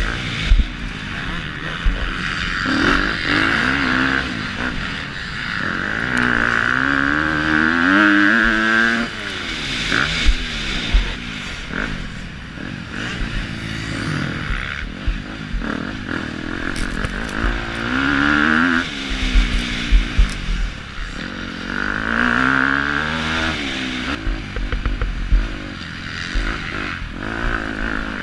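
Engine of a KTM 250 SX-F four-stroke, single-cylinder motocross bike, heard on board while racing. It revs up and falls back again and again as the rider works the throttle and gears, with several sharp knocks from the bike hitting bumps.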